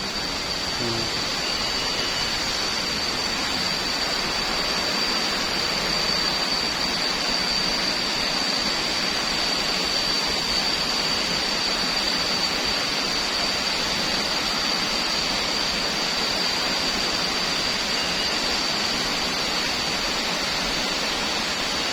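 Waterfall roaring as a steady, even rush of falling water, with a thin, steady high-pitched whine over it.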